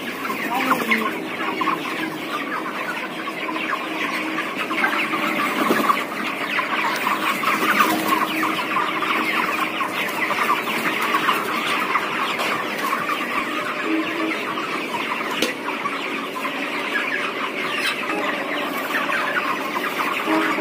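A large flock of 31-day-old broiler chickens clucking and chirping together in a dense, continuous chatter.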